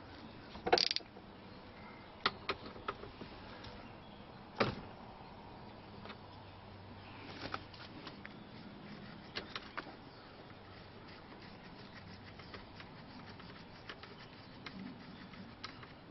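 Scattered sharp clicks and light knocks of a hand handling the plastic wiring connectors and parts at a steering-wheel hub. The loudest come about a second in and again near five seconds.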